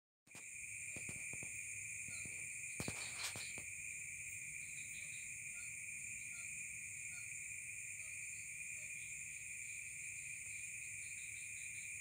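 Steady, unbroken chorus of insects, crickets by the sound, in two high bands, with faint short chirps scattered through it. A few clicks and knocks in the first few seconds, the loudest about three seconds in.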